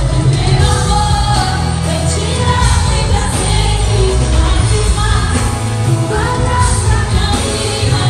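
Live band music with singing, loud, with heavy bass.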